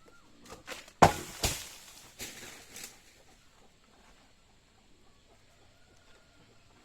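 A few sharp knocks. The loudest comes about a second in and a second one follows half a second later, then there are a few softer knocks before it goes quiet.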